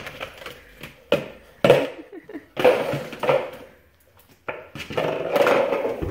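A Labrador puppy nosing and shoving a small plastic bowl across a hard floor: several sharp plastic knocks and clatters, then a short pause, then a longer stretch of scraping and rattling near the end.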